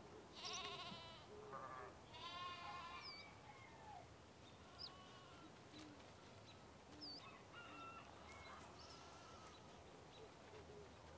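Sheep bleating faintly: two long, wavering bleats in the first three seconds, then fainter calls, with a few short high chirps in between.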